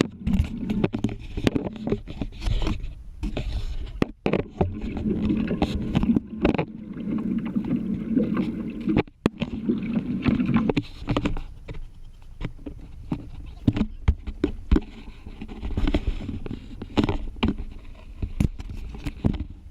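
Sound on board a deep-sea fishing boat: a steady low rumble with frequent short knocks and clatters.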